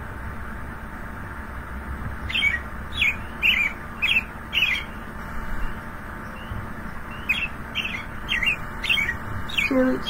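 American robin song: clear whistling phrases of about five notes each, the 'cheerily, cheer up' song, starting about two seconds in, with a short pause and a second phrase near the end.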